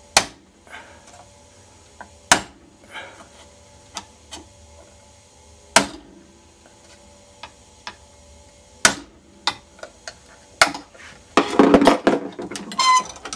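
Hammer tapping a sharp 1-inch chisel wedged in the seam of a plastic laptop charger case held in a bench vise: about five sharp strikes a few seconds apart, with lighter taps between. Near the end, a dense run of cracking and rattling with a brief squeak as the plastic case is pulled apart along its seam.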